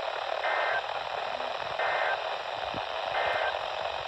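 Three short Emergency Alert System SAME data bursts, each a brief two-tone warble about a second and a half apart, over steady radio static. Their short length fits the end-of-message code that closes an alert.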